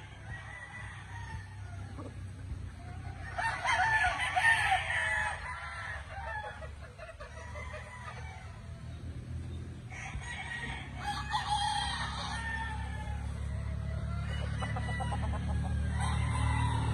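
Gamefowl roosters crowing: two long crows, each about two seconds, starting about 3 and 10 seconds in, with fainter calls in between over a steady low hum.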